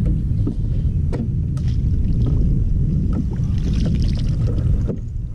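Steady low wind rumble on the microphone, with a few small clicks and a burst of splashing about three and a half to four and a half seconds in as a landing net is dipped into the water beside the kayak.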